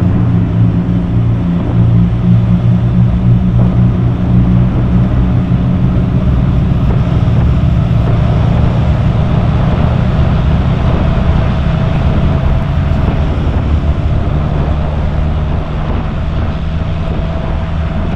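Morris Minor engine running steadily while the car is driven, heard from inside the cabin together with road noise.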